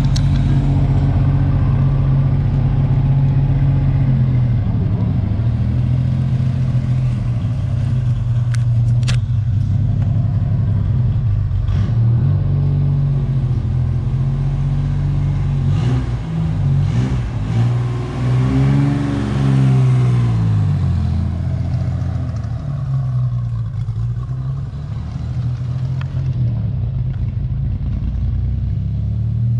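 1965 Chevrolet Corvair's air-cooled flat-six engine running, its revs shifting up and down, with a clear rise and fall in revs about two-thirds of the way in.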